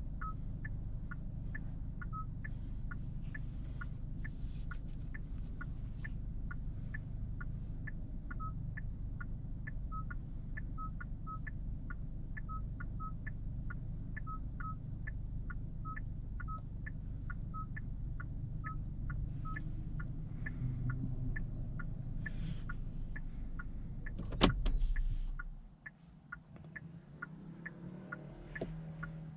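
Genesis G70's 2.0-litre turbo four-cylinder engine running with a fast regular ticking over it, about three ticks a second, then switched off with a thump about 24 seconds in, the engine hum dying away. A short electric motor whir follows near the end.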